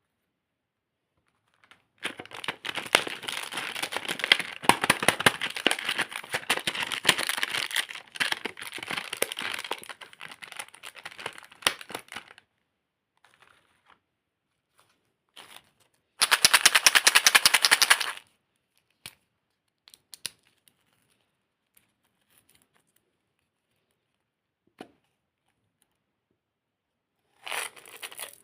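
Plastic candy packaging crinkling and tearing as it is opened, in dense crackling bursts: a long one of about ten seconds, a shorter, louder one a few seconds later, then scattered small clicks and rustles.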